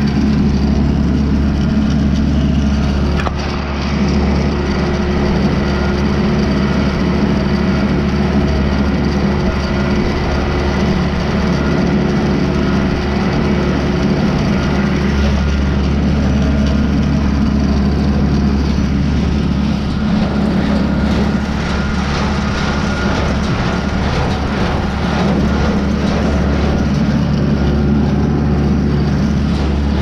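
Tractor engine running steadily, heard from the operator's seat, driving a New Holland 273 small square baler as it works the windrow.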